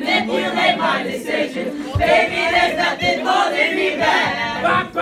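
A group of many voices singing together loudly, overlapping, with shouts mixed in.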